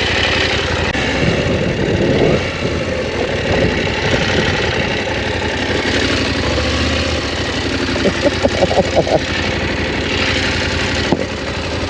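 Motorcycle engine running steadily, under a steady rushing noise.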